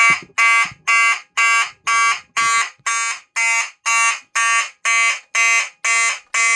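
Simplex 4251-20 fire alarm horn sounding on test, giving loud, evenly spaced, buzzy blasts about twice a second.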